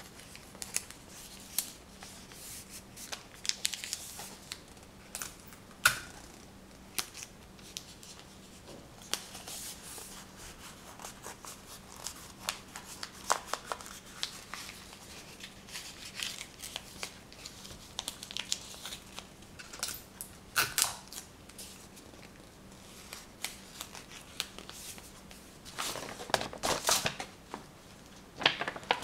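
Irregular clicks, taps and rustles of small objects being handled close to the microphone, with a sharp click about six seconds in and a longer stretch of rustling near the end.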